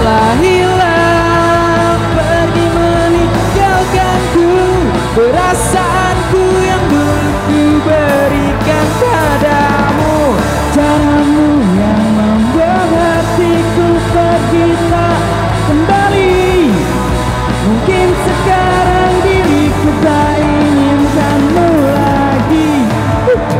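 Live rock band playing: two electric guitars, electric bass and a drum kit, with a male voice singing the melody.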